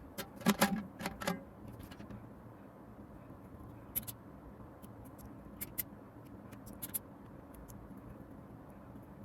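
A scattering of small, sharp clicks and taps: several in quick succession in the first second or so, then single ones a few seconds apart, over a faint steady hum.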